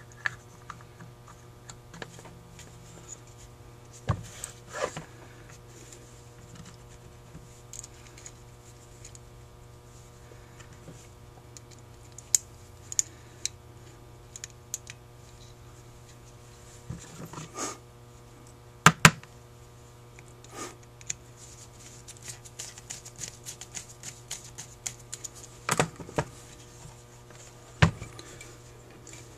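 Scattered clicks and taps of small metal and plastic parts being handled as the choke gasket and thermostat coil housing are fitted onto a Carter YFA carburetor, over a steady low hum. The loudest is a quick double click a little past halfway.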